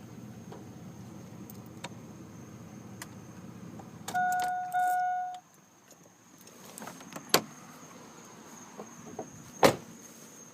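A 4.3L Vortec V6 running with a steady low hum and faint ticking. About four seconds in come two short beeps, after which the engine sound stops. Two sharp knocks follow, about two seconds apart.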